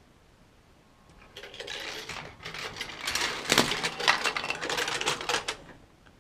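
G-scale LGB model train rolling past on brass track, a rattling clatter of many quick clicks from its wheels and cars. It starts about a second in, is loudest in the middle, and stops shortly before the end.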